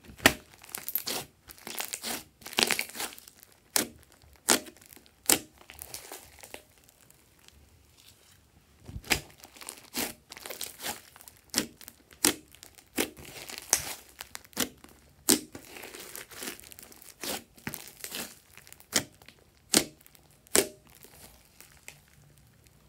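Hands squeezing, stretching and pressing a large mass of slime: sticky squelching and crackling with sharp pops as trapped air pockets burst, coming irregularly, with a short pause about a third of the way in.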